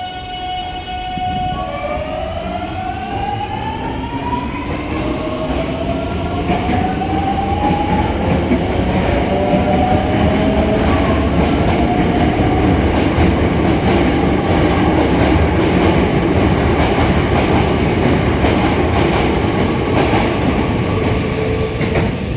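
Hankyu electric train pulling away, its VVVF inverter and traction motors giving a steady tone that then rises in pitch as several stacked whines over the first several seconds. This is a train noted for an unusual inverter sound. After that, rolling wheel noise with repeated clacks over the rail joints grows louder as the cars pass.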